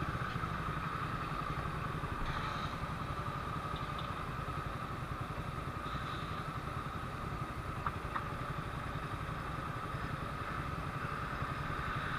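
Suzuki Raider 150 carbureted single-cylinder motorcycle engine idling steadily at a stop, with a steady high whine over the low rumble and a few faint clicks.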